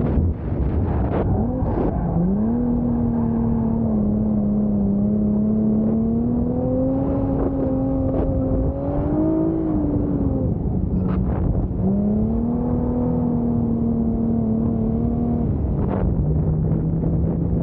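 Nissan 350Z's 3.5-litre V6 held at high, nearly steady revs while drifting, the note creeping up slightly. It drops away briefly about ten seconds in, picks back up, and settles lower near the end.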